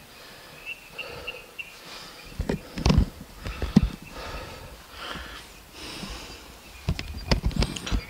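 Footsteps of a hiker walking up a grassy mountain trail: irregular steps, with the heaviest thuds about three seconds in and again near the end.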